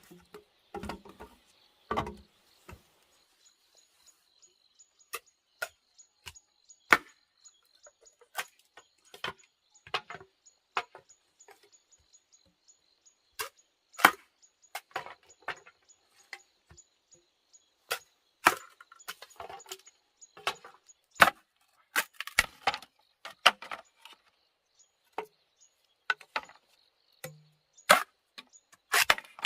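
Hand tool striking wood: short, sharp chops and knocks at an irregular pace, roughly one every second, some much louder than others.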